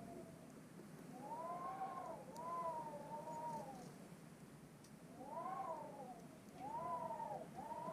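An animal calling five times in two groups, each call about a second long and rising then falling in pitch.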